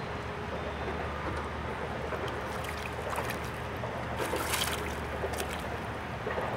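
Water splashing and lapping at the side of a small fishing boat while a hooked fish is brought in, with a brief louder splash about four seconds in, over a low steady hum.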